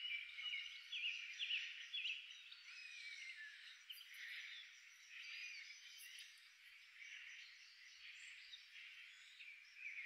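Small finches calling faintly: a cluster of quick twittering chirps over the first two seconds, then scattered single calls, over a steady background hiss.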